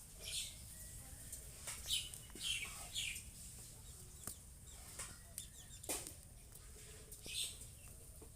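Small birds chirping, short high calls repeating about once or twice a second, with a few faint clicks.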